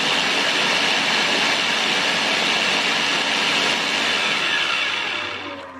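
Mitochiba CH100 electric chopper blending guava juice: a steady motor whir with the liquid churning, winding down as it is switched off near the end.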